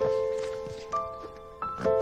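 Background score music: a slow melody of held notes, each struck and then fading, with new notes coming in about a second in and again near the end.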